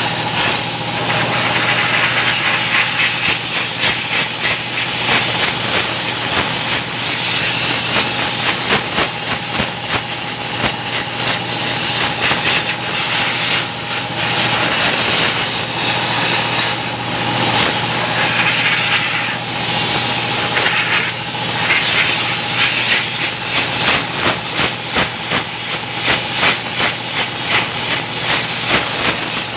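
Compressed air from an air-hose nozzle hissing in repeated short bursts, blowing dust out of a truck's paper air filter element, over a steady mechanical hum.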